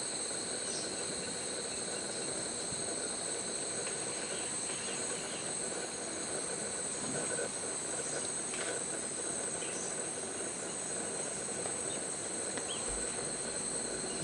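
Steady chorus of rainforest insects: a constant high-pitched drone at two pitches, with a few faint clicks.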